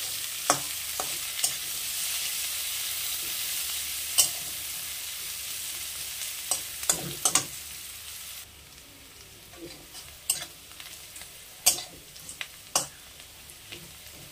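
Sliced onions sizzling in hot oil in a metal kadai as they are fried until golden brown, with a metal spatula scraping and tapping against the pan as they are stirred. The sizzling hiss drops away suddenly a little over halfway through, leaving scattered scrapes and taps.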